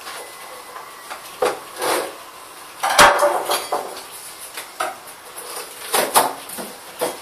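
Hard plastic clacks and knocks as a car headlamp's lens is worked off its plastic housing and the parts are handled on a wooden table. There are about seven sharp knocks, the loudest about three seconds in.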